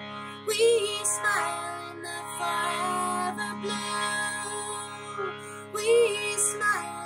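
A woman's voice singing a slow, sliding melody with wavering held notes over a sustained harmonium chord.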